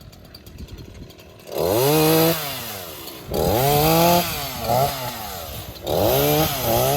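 Small engine revved hard in three long bursts about a second each, with a short blip between the second and third. Each burst climbs in pitch, holds briefly, then drops back.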